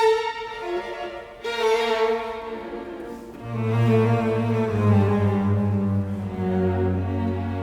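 Background music: slow bowed strings holding long notes, with a deep bass line coming in about three and a half seconds in.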